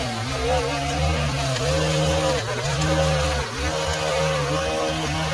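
Small petrol engine of lawn equipment running steadily, its pitch dipping briefly and recovering again and again as it takes load.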